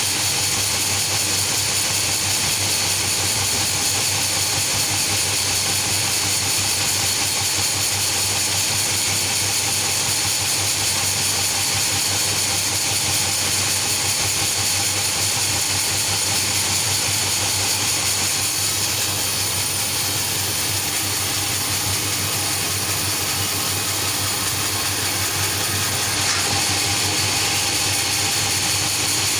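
Sawmill machinery running steadily: a constant low hum under a strong, even high-pitched hiss.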